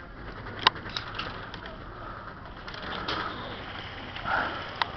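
Airsoft guns firing: scattered sharp single shots, the loudest about half a second in and another near the end.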